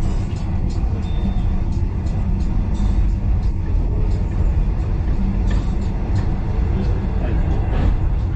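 Steam-hauled passenger train running along the track, heard from inside a carriage: a steady low rumble with irregular clicks and knocks.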